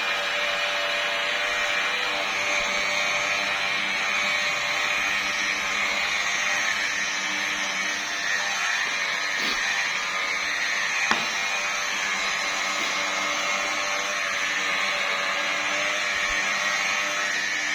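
Electric machine polisher running steadily with a foam pad on car paint: a motor hum over a rubbing hiss. There are a couple of brief clicks around the middle.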